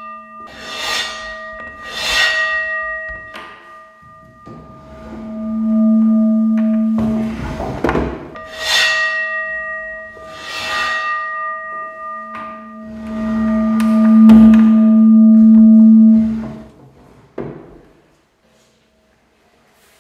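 A large bronze bowl bowed with a bow, ringing with several steady, high, bell-like tones over a rasp at each bow stroke. Twice its low note swells into a loud hum, reinforced by a cylindrical cardboard box acting as a resonator tuned to that pitch. The ringing stops with a short knock a little before the end.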